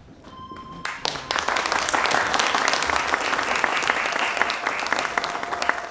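Audience applauding, starting about a second in, swelling quickly, holding, then tapering off near the end. A short steady tone sounds just before the clapping begins.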